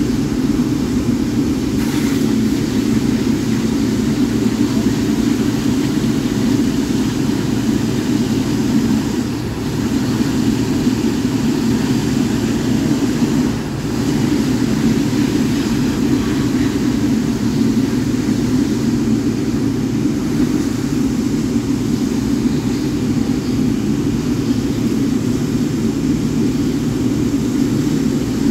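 Boeing 777-9's GE9X jet engines running at low power, a loud, steady, deep drone. It dips briefly twice, a few seconds apart, near the middle.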